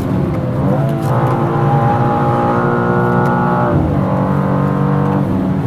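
2023 BMW M2's twin-turbo straight-six at high revs in fifth gear, heard from inside the cabin. The engine note rises in pitch about a second in, holds and climbs slowly, then drops sharply past the halfway mark before settling again near the end.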